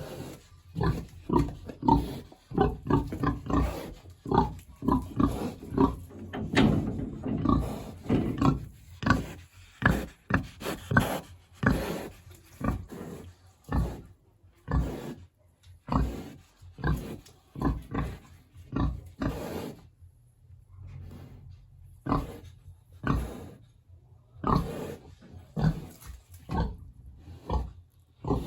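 Big black pig grunting over and over in short, irregular bursts, a few a second, easing off briefly about two-thirds of the way through.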